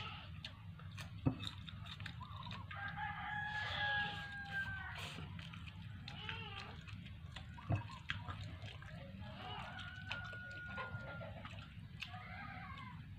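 A rooster crowing faintly, once about three seconds in and again around ten seconds, over a steady low hum. Two sharp clicks, about a second in and near eight seconds, are the loudest sounds.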